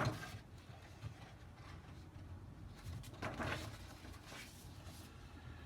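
Faint handling noise from paper: one brief rustle about three seconds in, over a low steady room hum.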